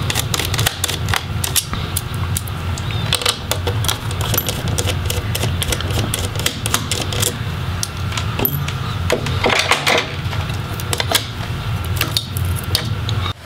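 Small screwdriver backing out the cooling-fan screws in a laptop chassis: many irregular light clicks and scrapes of the bit on the screw heads and of small metal and plastic parts being handled, over a low steady hum.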